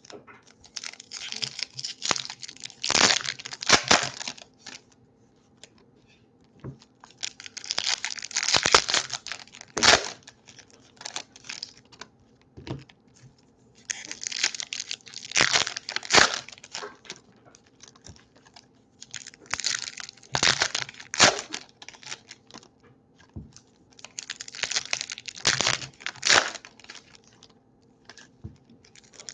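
Foil trading-card pack wrappers being torn open and crinkled by hand, in about five bursts of crackling a few seconds apart.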